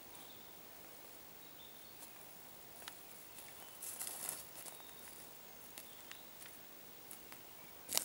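Faint footsteps and rustling on a forest floor of dry needles, twigs and pine cones, with a brief crunch about four seconds in.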